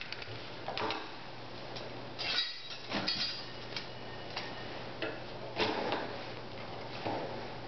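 Stainless steel surgical clamps clinking against each other and against a metal instrument rack as they are handled and set down: scattered metallic clicks, some with a brief ring, over a faint steady hum.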